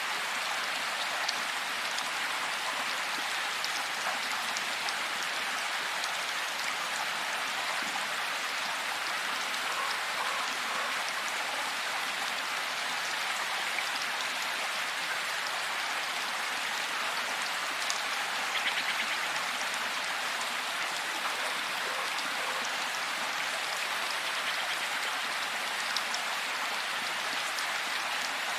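Heavy rain falling steadily: an even hiss of countless drops, with occasional sharper single drops standing out. No thunder is heard.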